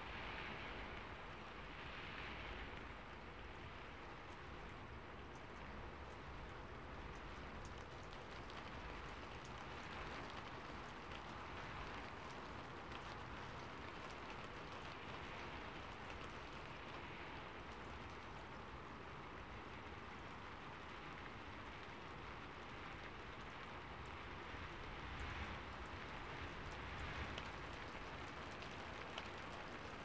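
Steady rain, an even hiss scattered with many small drop ticks.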